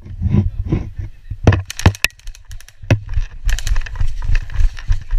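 A player running through grass and brush with a body-worn camera: irregular footfalls, sharp clicks and knocks of gear, and a steady low rumble of movement on the microphone.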